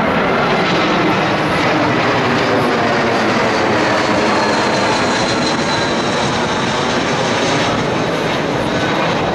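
Aeroplane passing overhead: a steady, loud noise with a faint high whistle drifting through the middle.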